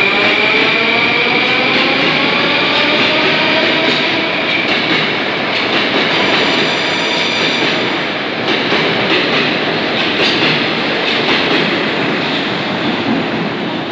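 Metro train accelerating out of the station and running past along the platform. Its motor whine rises in pitch over the first few seconds, and the wheels click over the rail joints.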